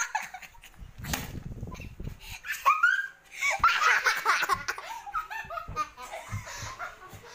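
A woman laughing hard in repeated bursts, unable to stop.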